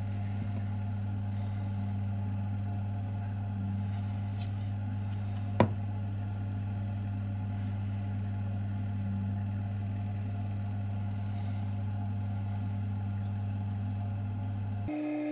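Steady low hum with one sharp click a little before the middle; just before the end it cuts abruptly to a different, higher-pitched hum.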